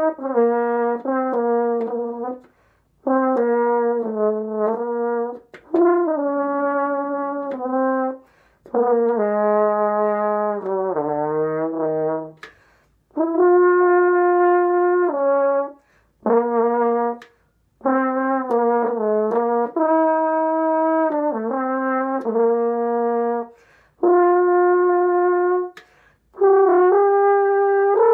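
A French horn played solo: an étude melody of held notes in phrases broken by short breaths, with a quick run of notes dropping to low notes about halfway through.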